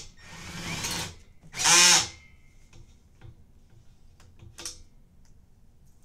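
Cordless drill driving a 1-inch bolt with a spring washer and flat washer straight into a bed frame, in bursts: a run of about a second, then a louder, higher whine around two seconds in, and one brief burst near the end, with small clicks of handling in between. The bolt goes all the way in smoothly.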